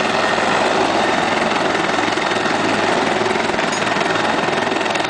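Military helicopter running on the ground with its rotor turning: a steady, loud turbine and rotor noise with a constant low hum.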